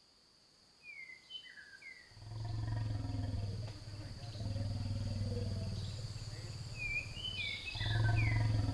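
Elephants rumbling deeply, starting about two seconds in, with birds chirping briefly near the start and again near the end over a steady high-pitched hum.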